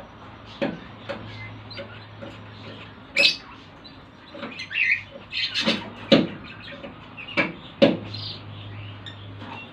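Lovebirds giving short, sharp chirps and squeaks at irregular intervals, over a steady low hum.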